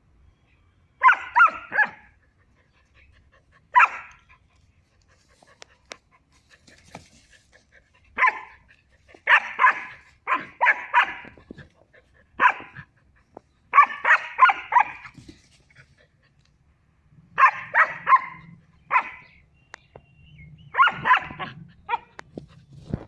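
Three-month-old German Shepherd puppy barking in play: clusters of short, high yaps, about eight bursts spread over the stretch with pauses between them.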